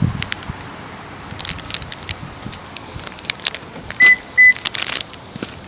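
Two short, identical electronic beeps from a 2010 Lexus RX350's warning buzzer, about four seconds in, with scattered light clicks of handling around them.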